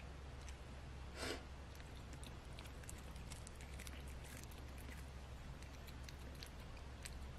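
Munchkin cat chewing a raw cabbage leaf held out by hand: a run of small, crisp crunches, with one louder brief rustle a little over a second in.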